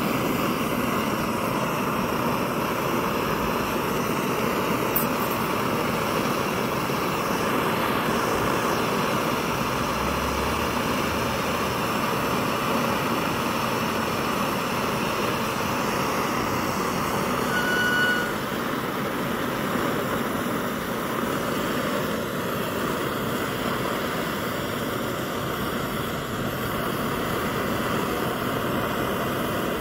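Kerosene pressure stove burner lit and burning with a steady, even rushing noise. A brief high whistle about two-thirds of the way through, after which the rush is slightly quieter.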